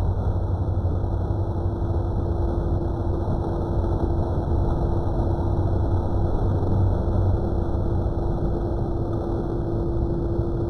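A steady mechanical hum with an even rushing noise, unchanging throughout.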